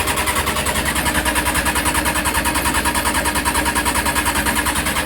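Honda CBR600F4i's starter motor cranking its inline-four engine, a steady fast beat of about a dozen pulses a second over a whine, without the engine firing.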